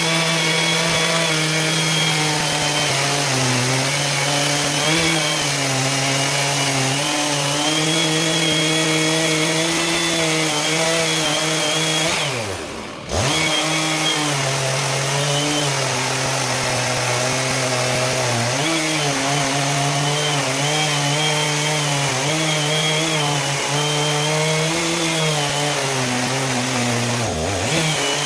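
Two-stroke chainsaw on a homemade chainsaw mill running steadily under load as it saws a log lengthwise into lumber. Its pitch wavers a little through the cut. The sound drops away briefly about 13 seconds in, then comes straight back.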